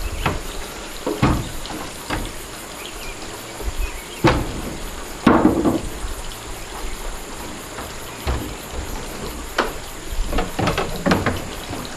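Hollow wooden knocks and bumps as plank wall panels are handled and set against the wooden frame of a wooden house. The knocks are irregular; the loudest comes about five seconds in, and a quick run of knocks comes near the end.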